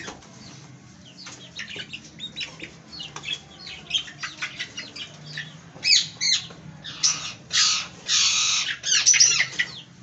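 Young Aseel chicks peeping in a crate. About six seconds in, as a hand grabs one, they break into loud squawks and wing flapping.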